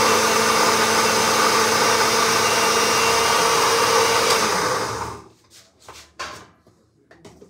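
A small electric motor appliance running loudly and steadily. It starts abruptly, dies away about four and a half seconds in, and is followed by a few light knocks.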